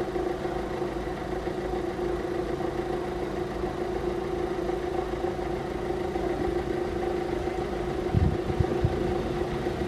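Level crossing warning alarm sounding continuously as a steady tone, with a few low thumps about eight seconds in.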